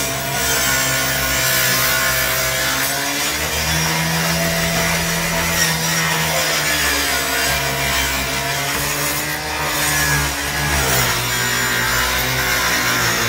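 Demolition machinery's engine running, its pitch rising and falling as the load changes, over a continuous crackling and scraping of wood as the garage is torn apart.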